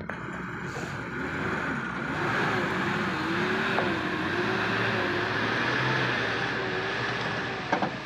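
Diesel engine of a loaded Tata tipper truck pulling away over rough quarry ground, its note wavering as it drives off. A few sharp clicks sound just before the end.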